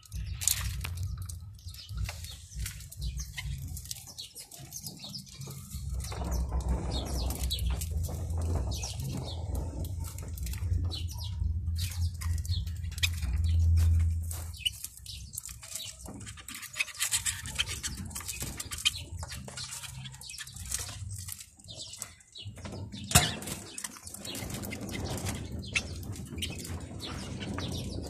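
Caged canaries and small finches chirping in short calls and fluttering their wings, over the low rumble of a handheld microphone being moved. A single sharp knock stands out about three-quarters of the way through.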